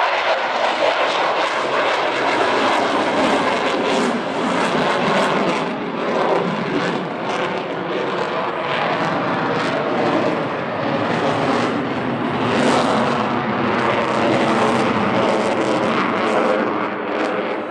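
Sukhoi Su-35 fighter's twin Saturn AL-41F1S turbofan engines at high power as the jet climbs steeply just after takeoff: a loud, steady roar with a crackling edge, easing slightly near the end.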